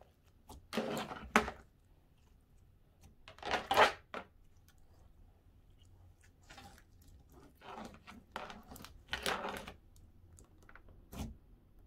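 Gooey slime being mixed and squished by hand, several short squishing sounds with pauses between them.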